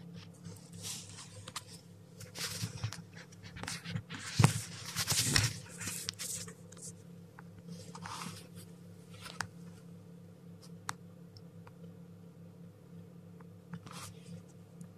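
A chick scrambling through wood shavings close by, rustling and bumping, with one sharp knock about four and a half seconds in. A steady low hum runs underneath, and a few light clicks and a short rustle come later.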